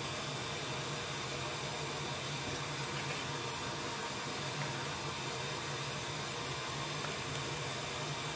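Steady hiss with a low hum underneath, unchanging in level.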